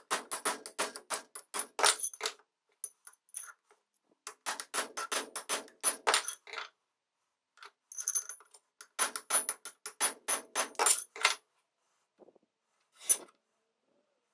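Hammer tapping a steel soldering-iron barrel against a steel block to knock a dent out of it: three runs of quick, ringing metal-on-metal blows, about five a second, then two single taps near the end.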